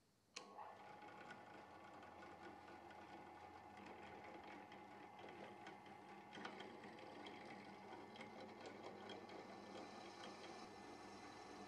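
Drill press motor running steadily while a twist bit drills through a natural micarta handle scale, with a faint steady hum and small ticks of the cut. The sound starts abruptly about half a second in.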